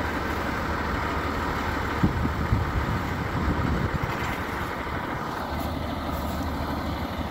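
Vehicle engine idling with a steady rumble, with a couple of short knocks about two seconds in.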